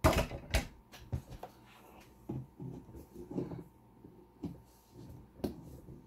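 A metal lock cylinder being handled: a series of sharp clicks and knocks, loudest in the first second, with softer rattling and rubbing in between.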